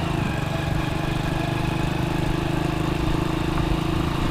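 Small single-cylinder four-stroke engine of a Honda step-through motorcycle running at a steady pitch while ridden, with no revving.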